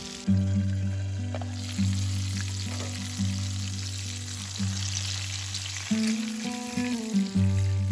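Whole bluegill sizzling as they fry in hot oil in a cast-iron skillet over a campfire. Background music with a steady bass line plays over the sizzle.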